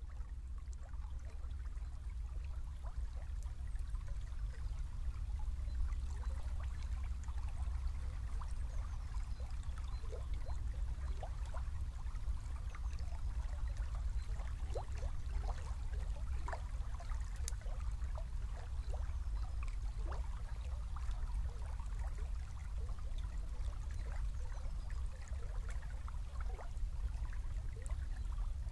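A small river running, with a steady trickling and gurgling of water over a low rumble.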